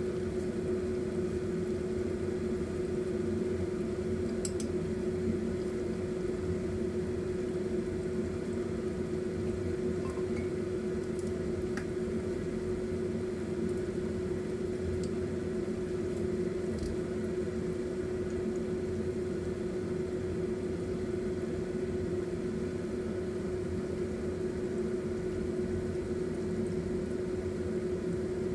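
Spring rolls deep-frying in a pot of hot oil: a continuous bubbling sizzle with a few faint pops, over a constant mechanical hum.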